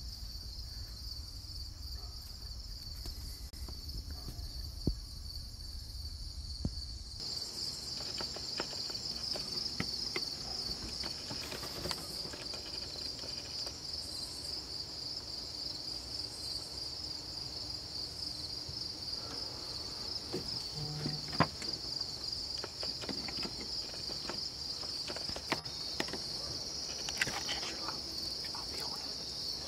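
Steady chorus of insects, a continuous high-pitched trill, with a few faint clicks and rustles; the low background drops away about seven seconds in.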